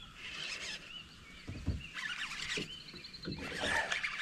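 Baitcasting reel being cranked while a bass is hooked on a topwater frog and fought from a kayak, with a low thump about halfway through and a busier stretch of handling noise near the end.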